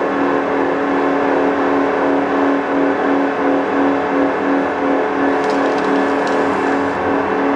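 CNC pipe threading lathe running: a steady machine hum with several held tones.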